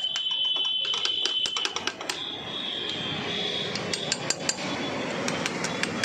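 Metal hand tools and engine parts clinking and clattering on a workbench, in a run of quick sharp knocks, over a steady high-pitched tone that fades out about four seconds in.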